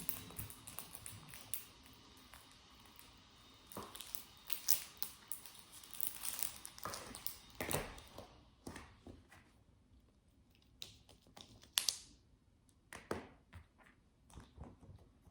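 Fidget toys handled close to the microphone for ASMR: irregular taps, clicks and crinkling.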